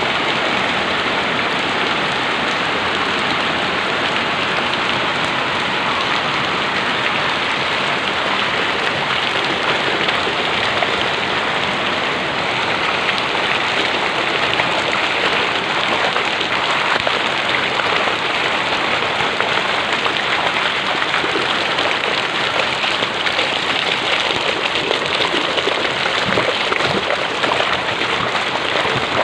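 Heavy rain falling steadily, a dense hiss of drops striking surfaces.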